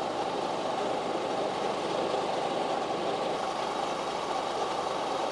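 A vehicle engine idling steadily at the roadside, a constant running drone with no change in speed.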